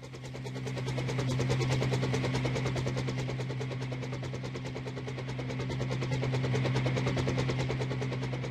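Double Horse 9053 coaxial R/C helicopter's electric motors and rotor blades spinning up over the first second or so, then running steadily with a fast, even chopping buzz over a constant hum.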